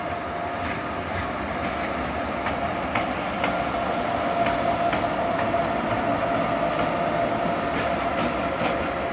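An electric locomotive running light with no cars, passing close by. Its wheels give a clickety-clack over the rail joints about twice a second over a steady whine.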